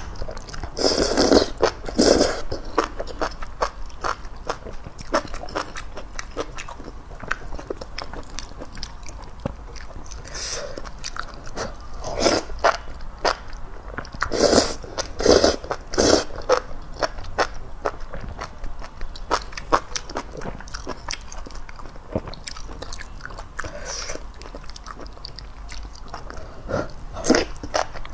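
A person slurping noodles out of a spicy broth and chewing, with close-up wet mouth clicks between several loud slurps, the biggest cluster coming about halfway through.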